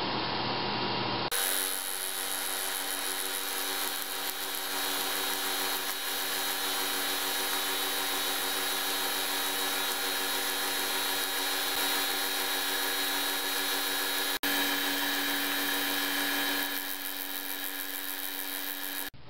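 Milling machine running a cut with a small milling cutter in a metal workpiece: a steady whine from the spindle and drive with the hiss and chatter of the cutter taking chips. The sound changes abruptly about a second in and again near the end.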